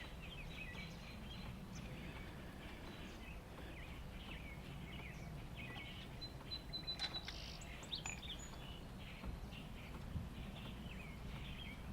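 Birds chirping and calling repeatedly, with one held high note about two-thirds of the way in, over a steady low background rumble.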